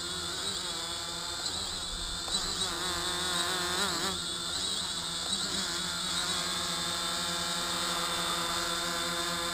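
Multirotor drone (DJI WK-M flight controller) hovering: a steady buzzing hum of its motors and propellers. The pitch wavers up and down for a few seconds in the middle as the motors change speed to hold height.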